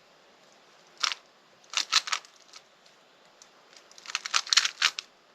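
Rubik's cube layers being turned by hand, with quick plastic clicks: one turn about a second in, a fast run of three near two seconds, and a rapid flurry of turns between about four and five seconds.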